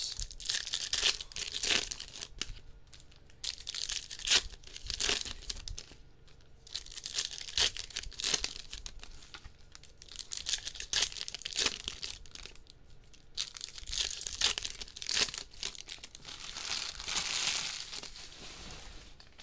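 Topps Chrome blaster box and its wrapped card packs being opened by hand: repeated crinkling of plastic and foil wrappers with tearing sounds and small clicks, in bursts separated by short pauses.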